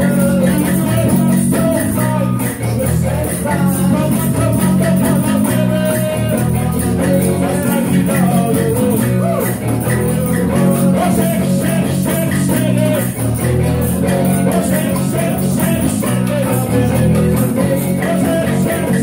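Live rock/blues band playing: a man singing over electric guitar, electric bass guitar and conga drums, with a steady beat.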